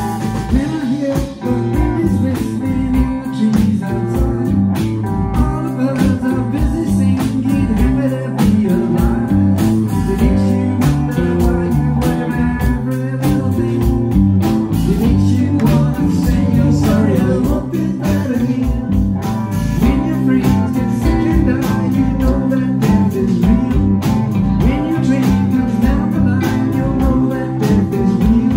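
Live rock band playing a blues-rock song: electric guitars, bass guitar and a drum kit keeping a steady beat.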